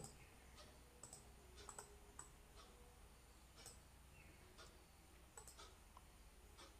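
Near silence with faint, scattered clicks of a computer mouse, about a dozen at uneven intervals.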